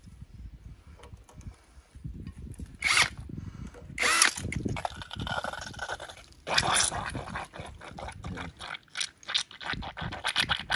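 Irregular metallic scraping and clicking as a hand turns and works the coupling on a small tractor's output shaft, where the oil seal has blown out. There are a few louder scrapes in the first half, then a run of short clicks.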